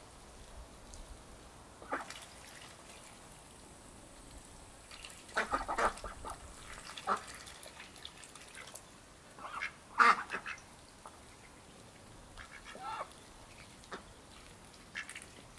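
Indian Runner ducks quacking in short, scattered bursts while feeding, the loudest about ten seconds in.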